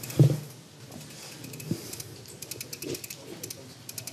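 Quiet hall ambience with a short low thump about a quarter second in, a single sharp click a little later, and faint scattered clicks and rustling throughout.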